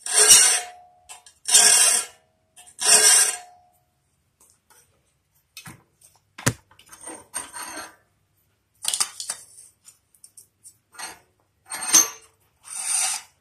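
Hand file rasping across a tooth of a circular saw blade held in a vise: three strokes about a second and a half apart, sharpening the tooth in the direction of its set. Then a stretch of light metallic clinks and one sharp tick as the blade is turned to the next tooth, and a few more file strokes near the end.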